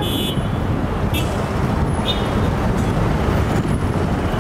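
Steady city street traffic: a continuous rumble of vehicle engines and tyres, with a few brief high-pitched chirps at the start, about a second in and about two seconds in.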